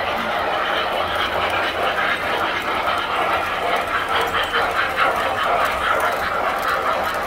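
Tinplate toy trains running on a layout: a steady mechanical whir with fast, even clicking from the wheels and track.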